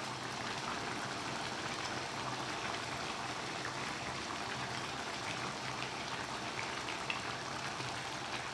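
Pork humba's dark braising sauce simmering in a wok, a steady soft bubbling hiss.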